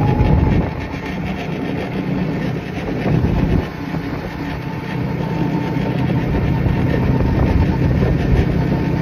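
Open-top car driving: a steady engine and road rumble with wind rushing over the open cabin, and a faint steady high whine through the second half.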